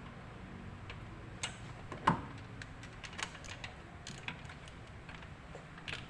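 Scattered light clicks and clinks of tools and small parts being handled, with one sharper knock about two seconds in.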